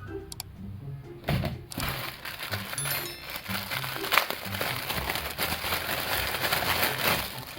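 Packaging crinkling and crackling as it is handled during an unboxing, starting about a second in and stopping just before the end, over background music.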